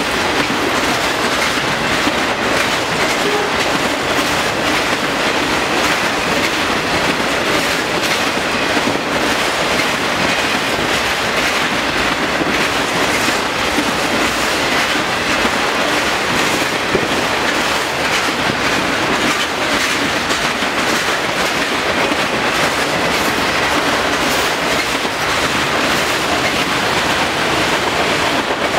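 A train of autorack freight cars rolling past close by: the steady, loud rumble and clatter of steel wheels on the rails.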